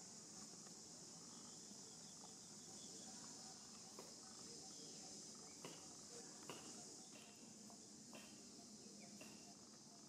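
Faint, steady high-pitched chorus of insects, with a few short clicks and brief chirps in the second half.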